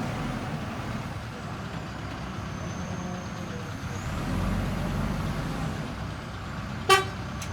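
Heavy diesel machinery working: the low, steady engine rumble of a backhoe loader and dump truck, swelling for about a second past the middle. Near the end a single brief, sharp, high-pitched tone cuts in, the loudest moment.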